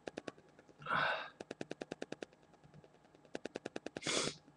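A man breathing noisily twice between sneezes, while he still feels another sneeze coming. Runs of rapid, evenly spaced clicks, about ten a second, come and go around the breaths.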